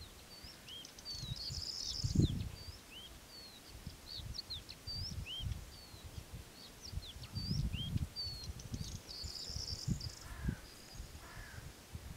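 Small birds chirping, many short whistled notes that glide up or down, over gusts of wind rumbling on the microphone. Near the end a few lower calls join in.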